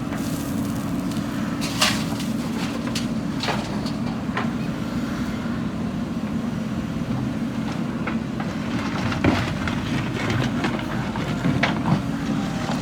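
JCB 3DX backhoe loader's diesel engine running steadily while it works, with a few sharp knocks scattered through, the clearest about two seconds in and again near nine and twelve seconds.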